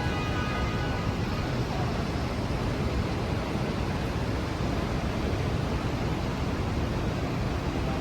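Steady rain and city traffic noise, with a faint high tone at several pitches in the first second.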